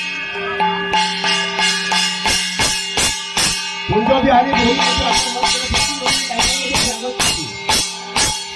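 Music with a steady drone under a quick, regular beat of percussion strikes.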